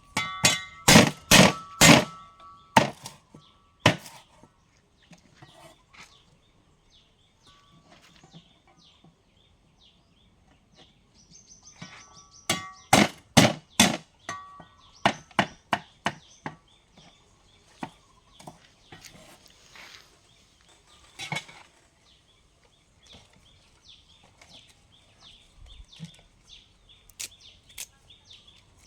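A blade chopping on a wooden cutting board in two bouts of quick, sharp strokes, about two a second, some with a brief metallic ring. The bouts are separated by quieter scattered taps.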